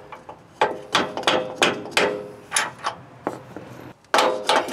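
Hammer tapping on steel as a lower control arm is worked into its frame mount. The blows come one at a time, each with a short metallic ring, then a quick run of blows near the end.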